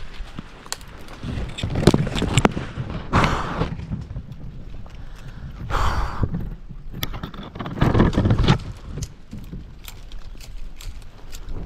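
Rustling and crunching of dry leaves and brush with scattered sharp clicks and knocks, in several irregular louder bursts, as someone moves and works through undergrowth.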